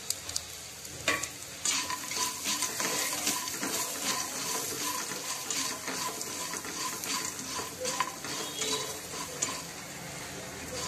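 A spatula stirring and scraping pre-fried potato cubes, paneer pieces and peanuts around an oiled kadhai, with a light sizzle of the oil. After a single click about a second in, the stirring starts and goes on as a steady run of small scrapes.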